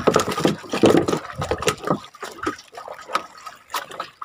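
Water splashing and dribbling, with scattered knocks and taps; busy and louder for the first two seconds, then sparser.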